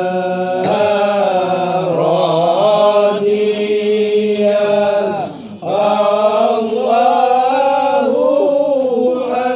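Men's voices chanting Arabic marhaban verses in praise of the Prophet, in slow, drawn-out melismatic lines. There is a short break for breath about five and a half seconds in, and the chant fades off at the end.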